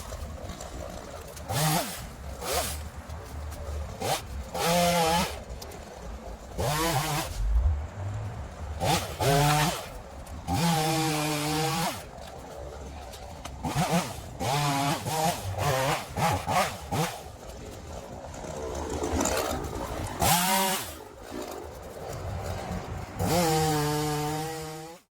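Ryobi 37cc two-stroke gas chainsaw running, its engine revved again and again in short bursts of throttle, each rising to a high buzz and falling back to a low idle.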